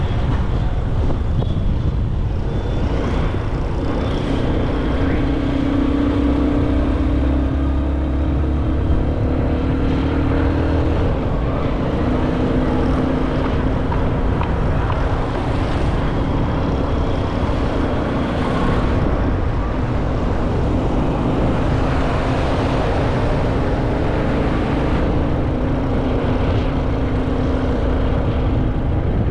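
Motorcycle engine running steadily while riding, its pitch shifting slightly as the speed changes, with wind rumbling over the microphone.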